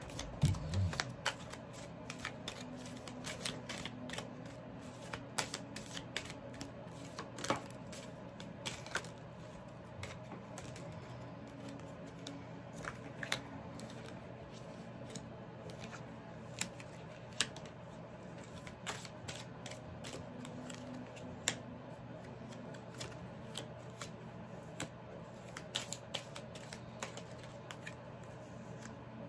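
A deck of fortune-telling cards being handled and laid out, giving irregular light snaps and taps of card on card and table throughout, over a faint steady hum.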